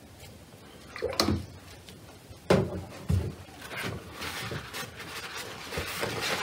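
A few sharp knocks and clatters as painting tools are handled and set down on a wooden work table, followed by a soft rustling.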